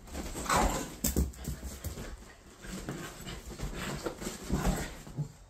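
Small dogs playing, giving short vocal bursts in between quieter stretches; the loudest come about half a second and a second in, and again near the end.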